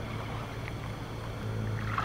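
A steady low hum over faint background hiss, growing slightly louder about one and a half seconds in.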